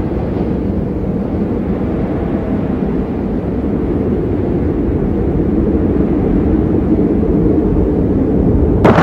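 Blizzard wind blowing in a steady low rumble that grows slowly louder.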